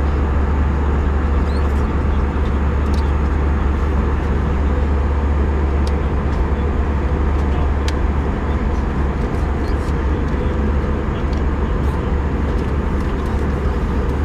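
Steady cabin noise of an Airbus A320 in flight: engine and airflow rumble with a strong low hum, unchanging throughout, with a few faint ticks.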